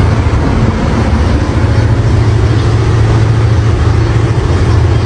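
A boat's motor running steadily under way, a loud constant low drone with an even hiss of rushing air and water over it.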